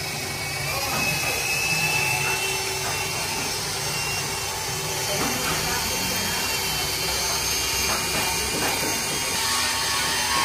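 A power tool running steadily with a continuous whirr and a faint high whine.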